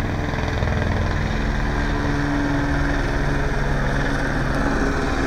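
Helicopter circling overhead, a steady engine and rotor drone with a rapid low pulsing.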